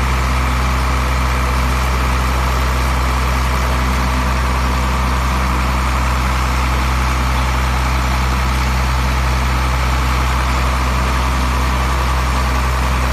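Wood crusher machine running steadily, a loud, even low-pitched drone with no breaks or impacts.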